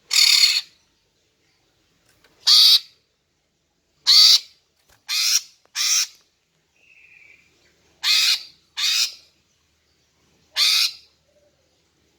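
Female green leafbird (cucak ijo) giving a series of short, harsh, rasping calls, eight in all at uneven intervals, with a fainter, thinner call about seven seconds in. It is the female's call used to lure a male and set him singing.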